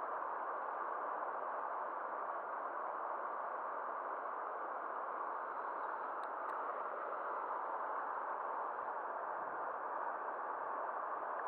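Steady rushing of river rapids, with two faint ticks about six seconds in.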